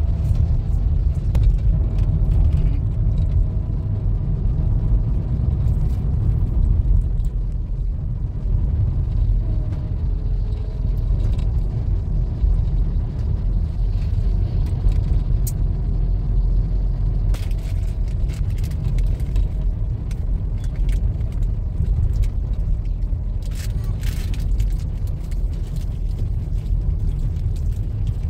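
A car driving, heard from inside the cabin: a steady low rumble of engine and tyres on a wet road.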